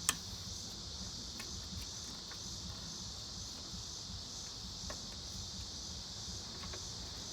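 Crickets chirring in a steady, high chorus, with a few faint clicks and taps, the sharpest just after the start.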